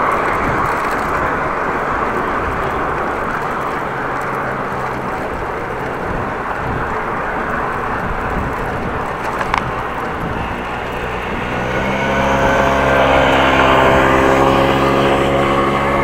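Wind and road noise on a bicycle-borne action camera's microphone while riding, with a brief click around nine seconds in. From about eleven seconds a motor vehicle's engine comes in with a steady drone, growing louder to become the loudest sound near the end.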